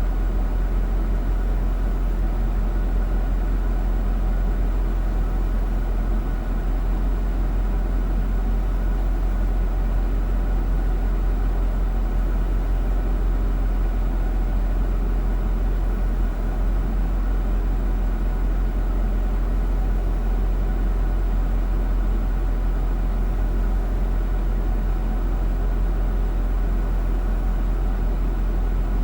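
Mercedes-Benz ML SUV engine running steadily, a deep, even drone with no rise or fall in engine speed.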